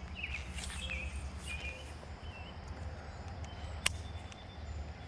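A small bird chirping in short, evenly repeated notes over a steady low outdoor rumble, with one sharp click a little before four seconds in.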